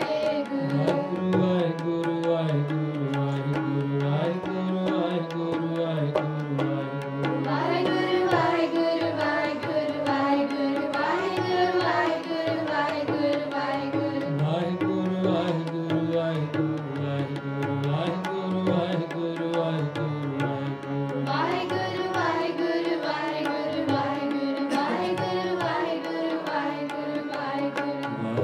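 Sikh kirtan: a harmonium holding sustained chords under sung hymn melody, with tabla drumming a steady beat throughout.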